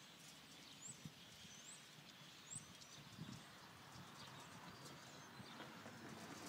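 Near silence: faint outdoor ambience with a few short, high bird chirps and a few soft taps.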